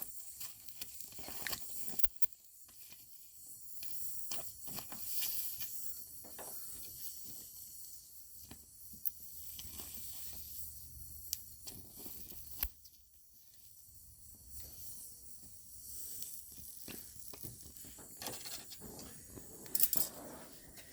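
Oxy-acetylene welding torch flame hissing steadily while filling a burned-through hole in thin sheet metal, with scattered sharp crackles and pops.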